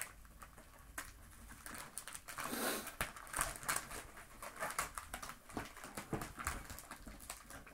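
Packing tape being picked at and pulled off a mailed package, with rustling and many small clicks and crackles of handling, and a longer tearing rustle about two and a half seconds in.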